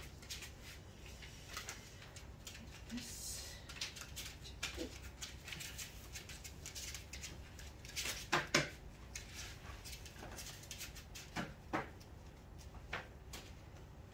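Puppy playing with plush toys hung on a string: scattered taps, scrabbles and knocks of paws and toys on cardboard, the sharpest few clicks about eight seconds in.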